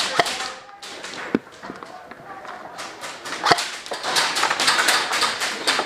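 Airsoft guns firing: a few single sharp snaps, then a quick string of shots from a little under four seconds in, with faint voices.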